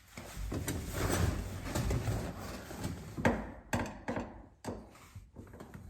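Rustling and handling of small interior parts, with a few sharp clicks and knocks, from work on the shifter boot's trim ring bezel and its screws.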